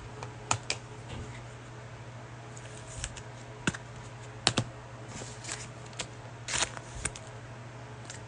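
Trading cards being handled on a table: scattered light taps and short slides of cardboard cards being gathered and set down, the sharpest tap about halfway through. A low steady hum runs underneath.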